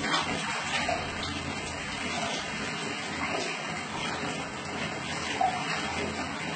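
Running water splashing steadily over a cat being washed.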